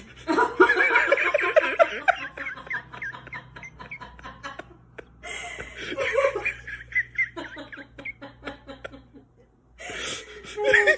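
Hearty laughter in long fits of quick, broken bursts, with short pauses about four and nine seconds in.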